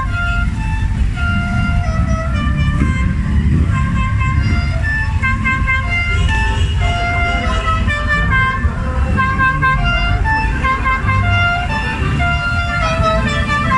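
Low rumble of vintage cars and motorcycles driving slowly past in a line. Over it runs a tune of short high notes throughout.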